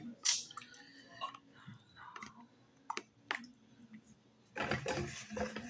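Close-miked eating sounds from a woman eating fufu and tripe: soft mouth smacks and a few sharp clicks, then a louder, noisy stretch near the end.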